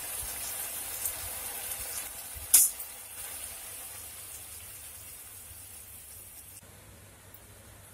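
Tomato sauce bubbling and sizzling in a small frying pan at a simmering boil, a steady hiss that grows fainter toward the end. One sharp tap about two and a half seconds in.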